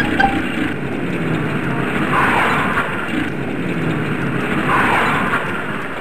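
Cartoon truck engine sound effect running steadily, with two swelling whooshes about two and a half seconds apart.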